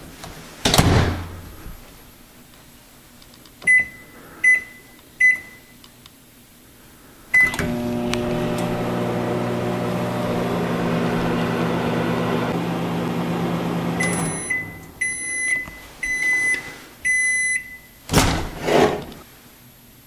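Microwave oven: the door shuts with a thump, then come three keypad beeps and a start beep. The oven runs with a steady hum for about six seconds, stops with a run of beeps, and near the end the door opens with a clunk.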